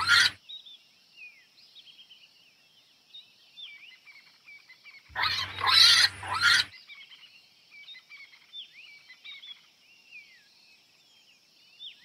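Warthog giving harsh, noisy calls: one ends just after the start and a longer one, about a second and a half, comes about five seconds in. Behind them, birds chirp and a steady thin high drone carries on throughout.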